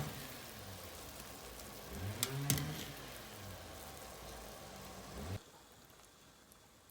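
Steady rain falling, with a couple of sharp clicks and a short pitched sound that rises and falls about two seconds in; the rain sound cuts off suddenly near the end.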